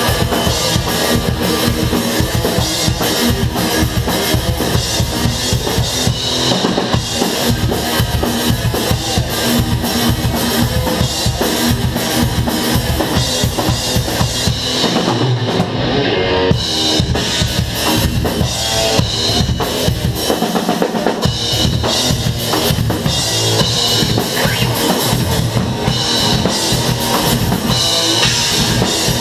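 Live metal band playing, with the drum kit to the fore: bass drum, snare and cymbals over the band. The cymbals drop out briefly about halfway through.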